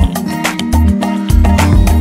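Background music with a steady beat: a bass line, held notes and regular percussion hits.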